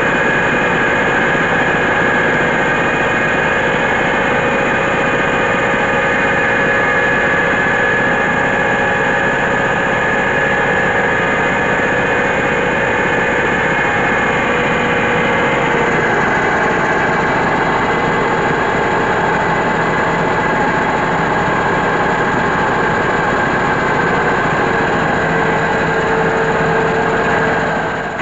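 Mobile diesel-powered rice mill running steadily under load while paddy is hulled and milled, a loud continuous machine drone with a whining tone; the pitch shifts slightly about halfway through.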